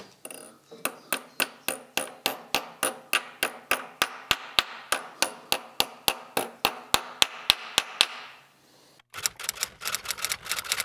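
Small hammer tapping a steel locking plate tab over a main bearing cap bolt, bending it over to lock the bolt: a steady run of light, ringing metal taps, about four a second, stopping about eight seconds in. About nine seconds in, a fast run of clicks starts.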